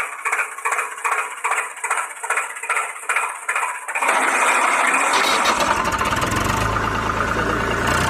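Engine sound effect laid over a silent toy tractor: a thin, rhythmic chugging at about three beats a second, then about four seconds in a louder steady engine run that fills out with a low rumble a second later.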